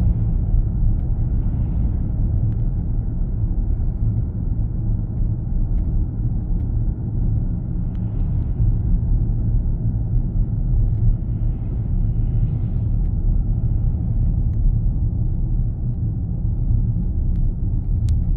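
Steady low road and tyre rumble inside the cabin of a Chevrolet Silverado EV pickup rolling downhill under regenerative braking, with no engine sound.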